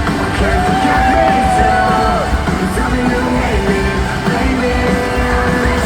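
Live rock song played loud by a band, recorded from the crowd, with a voice holding two long sung notes, one near the start and one near the end.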